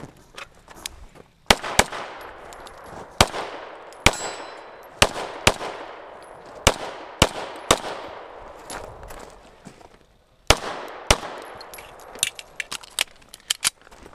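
A string of pistol shots fired from an STI Trojan during a timed course of fire, many in quick pairs, with a pause about two-thirds through before more shots. Lighter clicks follow near the end.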